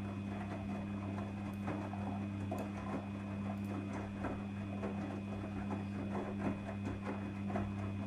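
Daewoo DWD-FT1013 front-loading washing machine washing: water sloshing and clothes tumbling in the turning drum, with irregular soft splashes and knocks over a steady low hum.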